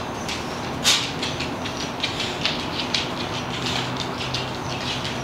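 A dog's claws clicking irregularly on a hardwood floor as it walks, with a sharper click about a second in, over a steady low hum.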